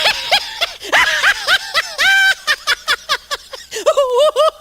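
High-pitched laughter sound effect: rapid chains of short giggling bursts, several a second, with one longer held note about two seconds in and a quieter run of giggles near the end.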